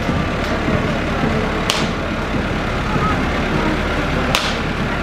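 Tractor engine running steadily as it pulls a loaded trailer slowly past, a dense low rumble. Two sharp clicks cut through it, about a second and a half in and again near the end.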